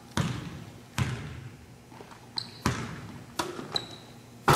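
Basketball dribbled on a hardwood gym floor: several sharp bounces, each ringing out in the large hall, with brief sneaker squeaks between them. Near the end comes a loud crash as the ball is dunked at the rim.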